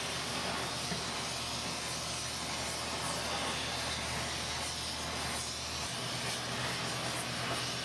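Gas torch flame hissing steadily as it is played over a copper transmission-line flange, heating the metal up to solder-melting temperature.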